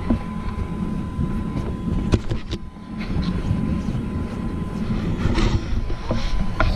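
Inflatable bounce house with its blower fan running: a steady low rumble with a thin steady whine, and several soft thumps and knocks as a child jumps and tumbles on the inflated vinyl floor.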